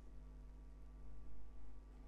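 Quiet room tone with a faint steady low hum; no distinct handling or screwdriver sounds.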